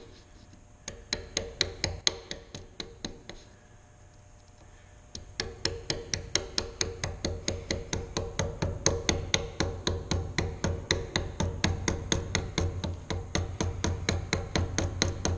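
Mallet tapping a 3/4-inch Marples bench chisel in quick, even strokes, about five a second, chopping out a shallow groove across a clamped board. The tapping is lighter at first, stops briefly around four seconds in, then comes back louder and steadier.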